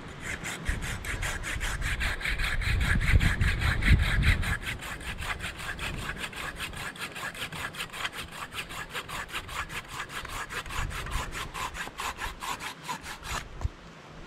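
Silky folding pruning saw cutting through a short green branch with quick, even rasping strokes, about five a second. The strokes stop shortly before the end as the piece is cut off.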